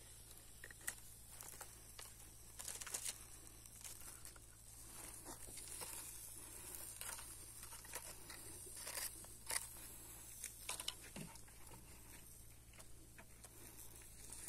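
Faint handling noises: soft rustling of palm leaves and scattered light clicks and taps as a knife and hands work among chicken in a wire grill basket.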